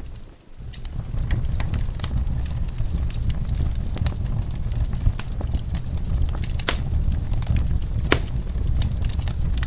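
Wood fire in a fireplace crackling, with a steady low rumble of flame and scattered sharp pops. Two pops, about 6.7 and 8 seconds in, are louder than the rest. The sound dips briefly just after the start.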